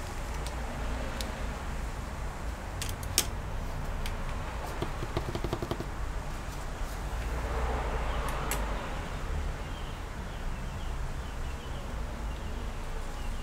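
Steady low electrical hum and faint hiss of a workbench, with a few faint sharp clicks, a short buzzing rattle about five seconds in, and a brief swell of noise around eight seconds. The technician heard a sound here that he could not place and thought might be plastic.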